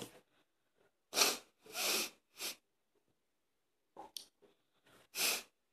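A boy breathing and sniffing close to the microphone: about five short, breathy sniffs and breaths with gaps of silence between.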